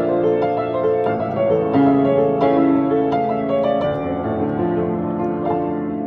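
Solo grand piano playing, with melody notes struck every half second or so over held chords.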